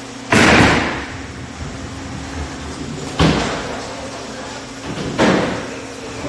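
Bowling lane sounds: three loud crashes, about three and then two seconds apart, each dying away quickly, as a bowling ball is thrown down the lane and the pins and pinsetter clatter. A steady low hum runs underneath.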